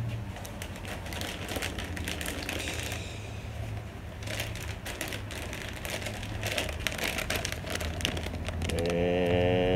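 A plastic snack bag of Herr's Carolina Reaper cheese curls crinkling and crackling irregularly as it is handled and turned over in the hands. Near the end a louder, steady pitched sound comes in.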